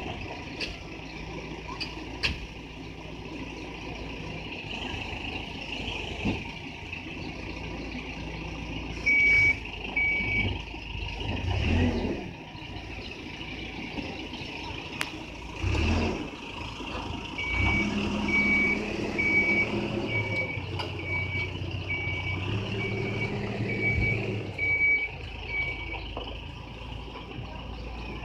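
A backhoe loader's diesel engine runs, its pitch rising and falling as it works. Its reversing alarm beeps twice about a third of the way in, then beeps steadily about one and a half times a second for several seconds as the machine backs up. A couple of heavy low thumps come in between.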